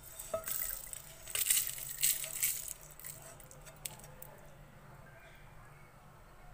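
Dry-roasted whole cumin and coriander seeds and dried red chillies pushed off a pan with a spatula, rattling and pattering into a glass grinder jar for about three seconds.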